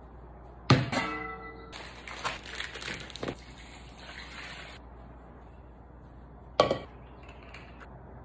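Large stainless steel pot set down on a countertop with a sharp metallic clang that rings briefly, then liquid poured into the pot for about three seconds. A second clank comes near the end as a frying pan is put down, followed by a faint pour.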